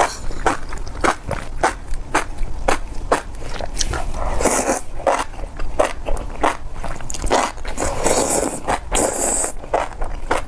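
Close-miked chewing of spicy enoki mushrooms, a steady rhythm of about two to three chews a second. Two longer, hissier stretches, about four seconds in and again near the end, break into the chewing.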